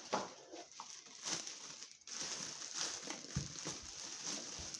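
Plastic packaging crinkling and rustling as blender parts are handled and unwrapped, with a few soft knocks.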